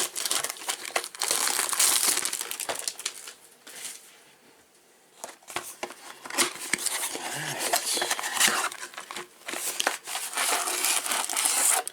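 Crinkling and rustling of plastic wrapping on a trading-card box as it is handled, with sharp crackles, pausing briefly about four seconds in before starting again.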